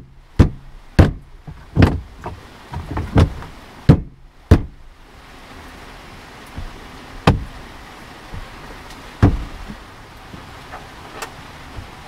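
Hand banging on the plastic rear side trim panel of a 2015 Dodge Challenger to snap its retaining clips into place: about six sharp knocks in the first five seconds, then a few more spaced out.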